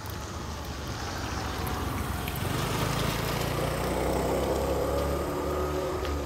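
A motor vehicle's engine going past, growing louder to a peak past the middle and then fading.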